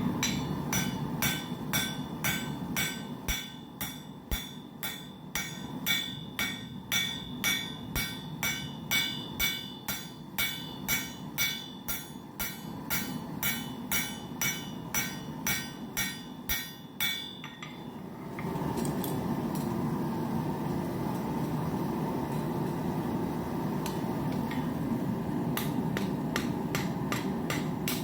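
Blacksmith's hammer striking a square steel bar on an anvil, about two blows a second, each with a bright metallic ring, flattening and beveling the bar's corners. The hammering stops about two-thirds of the way in, leaving a steady rushing noise, and a quicker run of blows starts near the end.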